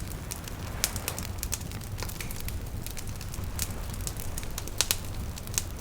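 Wood bonfire crackling, with irregular sharp pops and snaps, over a steady low rumble of ocean waves.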